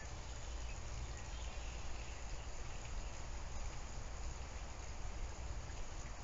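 Steady background noise: a low hum with an even hiss over it, and no distinct sound standing out.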